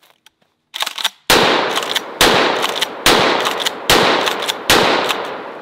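Remington 887 Nitro Mag pump-action 12-gauge shotgun fired five times in quick succession with 3½-inch 00 buckshot shells, about one shot a second, each shot ringing out in a long echo. A short clatter comes just before the first shot, and the last echo fades away near the end.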